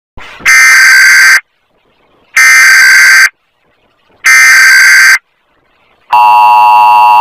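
Emergency Alert System tones, loud: three digital header data bursts of about a second each, a second apart, then, about six seconds in, the EAS attention signal, a steady harsh tone that runs for about two seconds.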